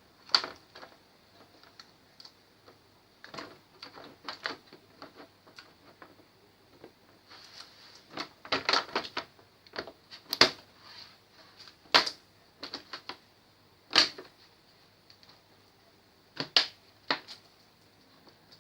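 Irregular clicks and light taps of hard plastic and metal parts being handled, with a handful of louder sharp clicks among them.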